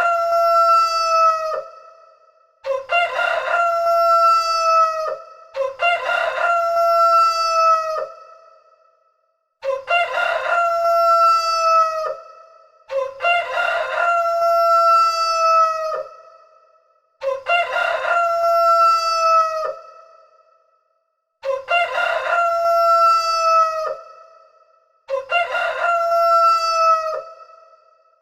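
A rooster crowing over and over: about eight full cock-a-doodle-doo crows, each lasting about two and a half seconds and coming every three to four seconds.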